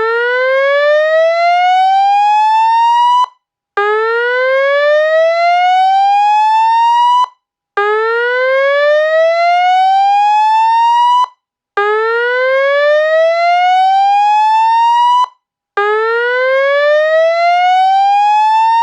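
Atlas Sound AP-15TUCR horn loudspeaker sounding a slow-whoop fire-alarm evacuation tone. It plays five loud rising sweeps, each lasting about three and a half seconds, with short breaks between them.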